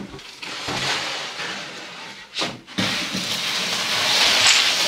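A plastic storage bin sliding and scraping across a wooden floor as it is pushed, a steady scraping noise that starts about three seconds in and grows louder toward the end. Before it there is quieter handling noise and a short knock.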